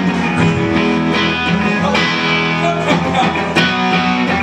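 Guitar strumming chords that ring on, with a fresh strum about once a second.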